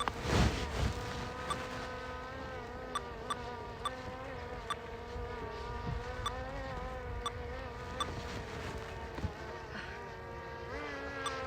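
A small electric motor buzzing steadily with a slightly wavering pitch. There is a loud rush of noise about half a second in, and a few sharp ticks.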